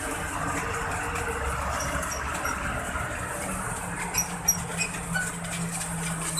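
An engine running steadily, with a steady low drone coming in about halfway through.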